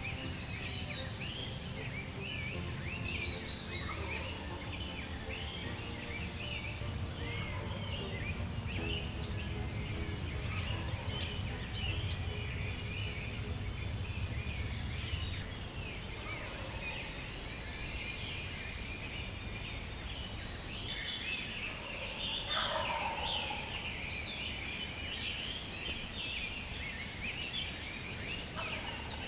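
Wild turkeys gobbling at dawn, repeatedly, with the loudest gobble about three-quarters of the way through. Behind them runs a dense dawn chorus of songbirds with steady high chips, and a low rumble fades out about halfway.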